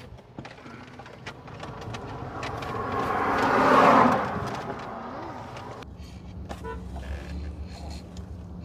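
A road vehicle passing close by, heard from inside a car: its noise swells to a peak about four seconds in and then fades. Light plastic-bag rustling and clicks run alongside, and a steady low rumble sets in about six seconds in.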